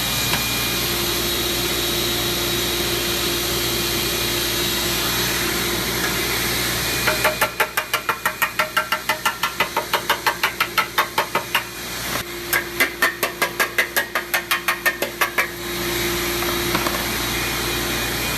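A shop vacuum runs steadily with a motor hum. About seven seconds in, a screwdriver taps rapidly on the furnace's metal heater element, about five knocks a second, in two bouts with a short break between them. The tapping knocks mud dauber nests loose for the vacuum.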